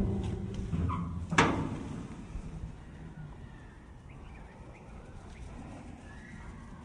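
Sheet-metal door being swung open, a low rumble dying away in the first second and one sharp metallic clack about a second and a half in; then only faint outdoor background.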